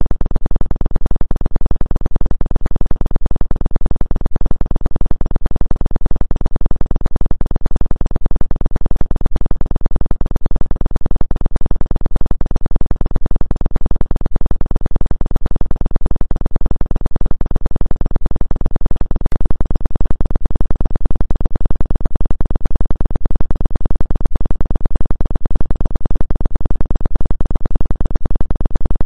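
Steady synthesized electronic drone, strongest in the deep bass, with a rapid even flutter; a sound-therapy 'frequency' track billed as a 2 Hz acupuncture frequency.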